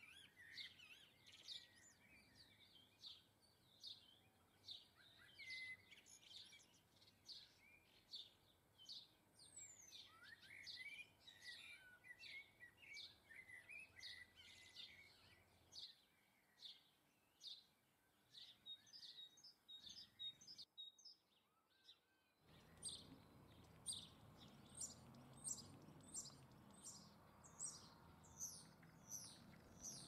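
Faint chirping and twittering of small songbirds, many short high calls a few each second. A brief near-silent break comes about two-thirds of the way through, after which the chirps carry on over a low background rumble.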